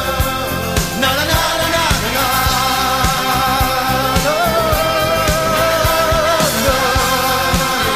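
Latin pop-rock song with long held sung notes over a full band and a steady drum beat.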